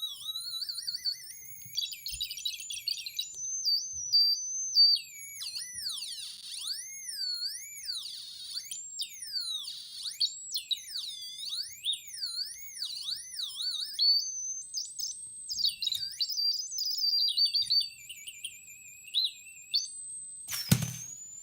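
Homemade Arduino sound machine giving out a single electronic beeping tone that jumps from pitch to pitch and in the middle glides up and down in fast wobbling, siren-like sweeps. A short crackling burst comes near the end.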